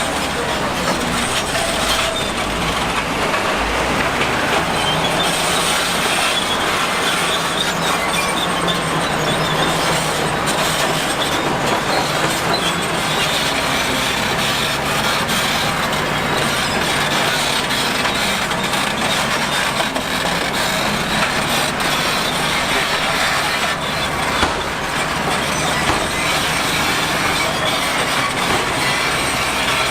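Heavy earthmoving machinery at work: a loud, steady mechanical running noise with frequent metallic clanks and knocks.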